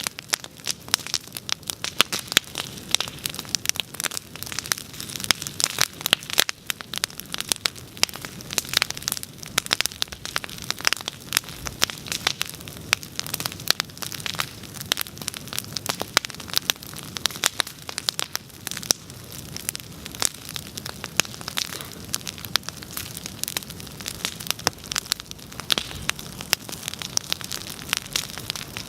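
Wood bonfire crackling: dense, irregular sharp pops and snaps over a low, steady rush.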